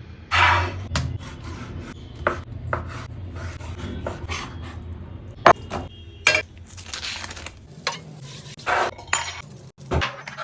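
Kitchen utensils and dishes clinking, scraping and knocking at an uneven pace while food is prepared, over a low steady hum.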